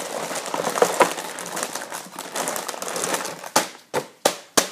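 Rustling and crinkling of objects being handled close to the microphone, then four sharp knocks in quick succession near the end.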